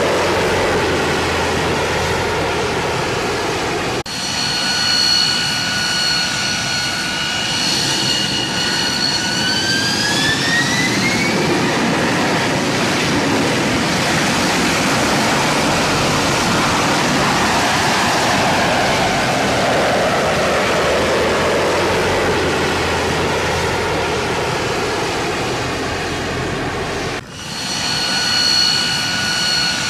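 Jet engine running: a steady high whine over a rushing roar. About ten seconds in the whine rises in pitch as the engine spools up, then gives way to a roar that sweeps down in pitch around twenty seconds in. The sound cuts off abruptly twice, about four seconds in and near the end, where the steady whine comes back.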